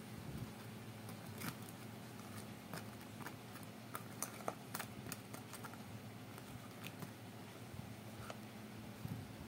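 Wooden chopsticks clicking and tapping against a plastic bowl while turning a piece of fried tofu in sauce: soft scattered clicks, most of them in the first half, over a low steady hum.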